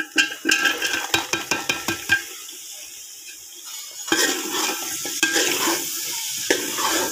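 Chopped potatoes and carrots tipped into a hot metal pot of frying masala, landing with a quick run of clicks and clatter for about two seconds, then a quieter sizzle. From about four seconds in, a metal spatula stirs the vegetables through the oil, scraping and sizzling.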